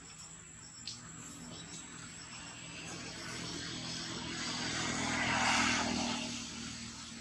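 Engine drone of a passing motor vehicle or aircraft: a steady low hum that swells to its loudest about five and a half seconds in and then fades.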